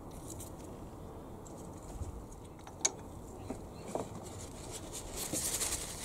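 Small hand-handling noises from work on a car engine: a sharp click about three seconds in, a few lighter taps after it, and a papery rustle near the end as a paper tissue is pressed against the engine to soak up oil.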